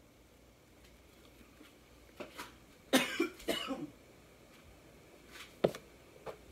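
A woman coughing, two sharp coughs close together about three seconds in, with a few light knocks before and after.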